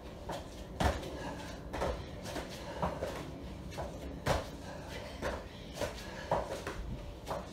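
Irregular thuds of two people doing burpees on exercise mats, as hands and feet drop down and jump back up, about one landing a second.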